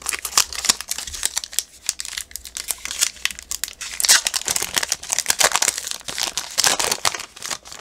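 Foil-lined wrapper of a Tim Hortons Team Canada hockey card pack crinkling and tearing as it is ripped open by hand, a dense run of sharp crackles.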